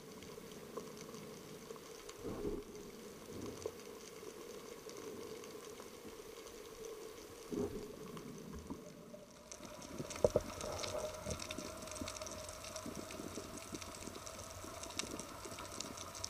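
Faint underwater sound: a steady low hum with scattered clicks and knocks, turning to a brighter crackling hiss with a higher hum a little over halfway through.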